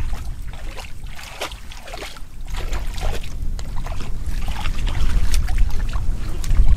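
Low rumble of wind on the microphone, with scattered small splashes and rustles of hands working in shallow muddy water among twigs.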